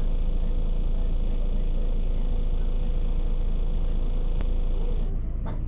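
Double-decker bus engine idling, heard from inside on the upper deck: a steady low rumble with a faint whine. A single sharp click comes about four seconds in, and the higher hum drops away near the end.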